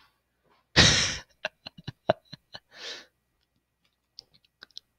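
A short, loud breathy exhale close to a headset microphone, like a laughing huff, followed by a quick run of small sharp clicks. A softer breath comes about three seconds in, and a few faint clicks near the end.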